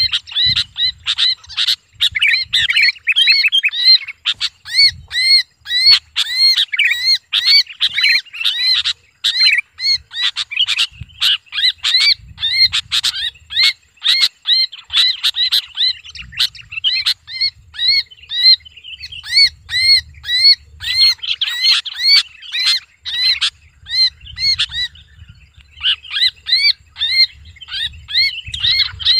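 Sooty-headed bulbul held in the hand, screaming in distress: a rapid run of short, harsh arched calls at about two a second, with a brief lull near the end.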